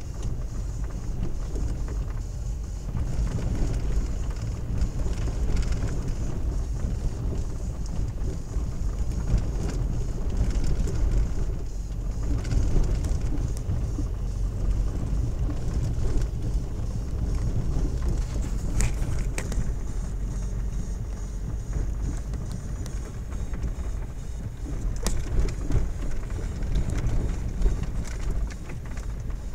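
Car cabin noise while driving over a rutted, broken-up road: a steady low rumble of engine and tyres, with a few short sharp clicks, two close together about two-thirds through and one more near the end.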